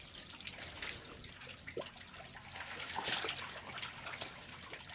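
Water trickling and dribbling, with scattered small clicks and a slight swell about three seconds in.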